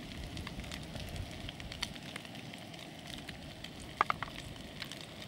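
Crinkling and rustling of plastic food packaging in an insulated cooler bag, with scattered crackles and a brief squeak about four seconds in. Light wind rumble on the microphone fades after the first couple of seconds.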